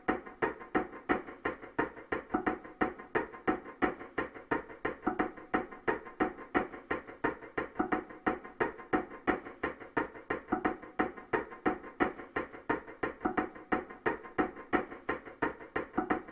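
Background music: a fast, even pulse of short repeated notes, about four to five a second, running without a break.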